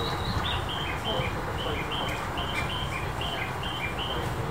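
A run of short, clear bird-like chirps, higher notes alternating with slightly lower ones about two to three times a second, over a steady low rumble of station background noise.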